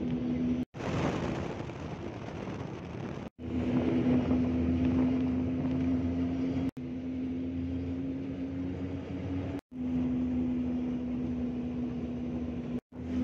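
Steady drone of a vehicle's engine and road noise while driving, a constant hum with a hiss over it. It cuts out abruptly for a split second about every three seconds, five times in all.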